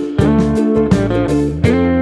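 Background music led by guitar: plucked notes over a bass line.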